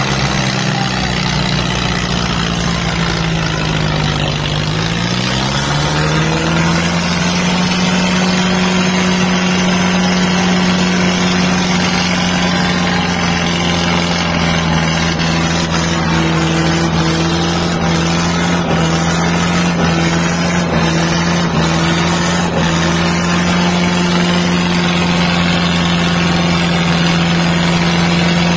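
55 hp tractor diesel engine running hard under load in a tractor tug-of-war pull. The engine note sags slightly, climbs back up about five seconds in, then holds steady.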